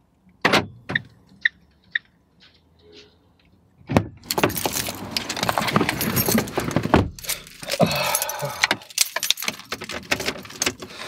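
A person getting into a car's driver's seat: a few sharp clicks early, a thump about four seconds in, then clothing and seat rustling with keys jangling.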